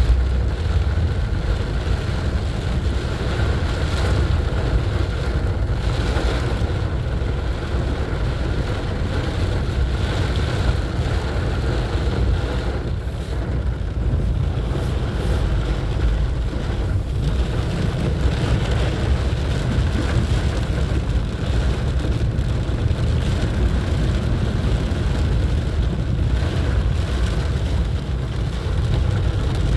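Car driving through heavy rain on waterlogged roads: a steady low rumble of engine and tyres with the rush of water beneath it.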